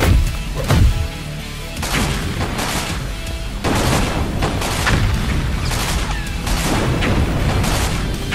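Cartoon explosion and gunfire sound effects over background music: sharp booms about once or twice a second, thickening into a dense, continuous barrage about halfway through.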